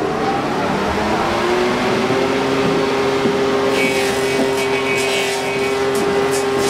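Wooden-clog copying lathe running with a steady motor hum that rises slightly as it comes up to speed. About four seconds in, its cutters start biting into the wood, adding an uneven ticking and hissing.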